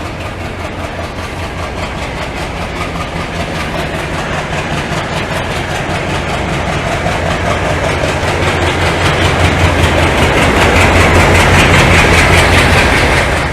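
Trains running at speed on parallel tracks, with wheels clattering over the rail joints in a fast, even rhythm. The rush grows steadily louder, then cuts off suddenly at the end.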